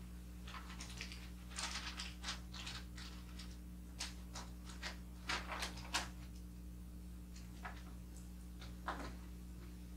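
Wrapping paper rustling and crinkling as hands fold and crease it around a box, in a run of short bursts over the first six seconds and once more near the end, over a steady low hum.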